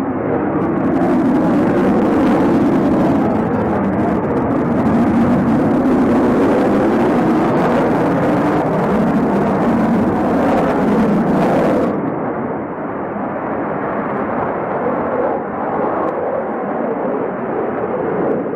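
Twin jet engines of a Sukhoi Flanker-family fighter, a loud, steady jet noise as it flies display manoeuvres overhead. The sound turns duller, losing its high hiss, about twelve seconds in.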